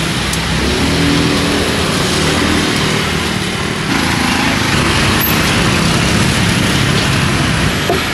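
Street traffic: a steady mix of vehicle engines running by the roadside. The sound changes abruptly about four seconds in.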